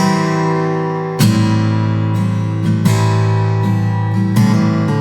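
Dame Lilies 70 acoustic guitar, with a cypress top and mahogany back and sides, strumming ringing chords. It changes chord about every second and a half.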